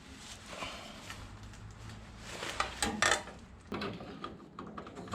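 Light knocks and clinks of a freshly bent sheet-steel repair panel being handled, with a few louder knocks near the middle.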